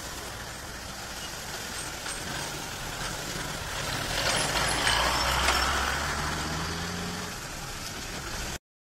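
A truck driving past on the road, its engine hum and tyre noise swelling for a few seconds in the middle over steady street traffic. The sound cuts off abruptly near the end.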